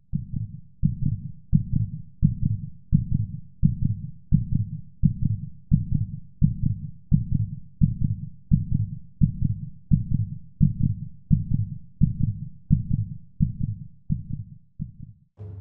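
Heartbeat sound effect: a low double thump repeating evenly about every 0.7 seconds, growing fainter near the end.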